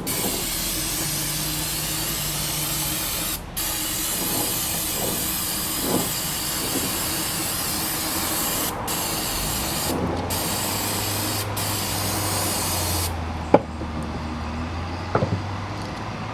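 Aerosol can of non-chlorinated cleaner spraying in long hissing blasts with short breaks, flushing grease out of an open differential. The spray stops about 13 seconds in, and two sharp clicks follow.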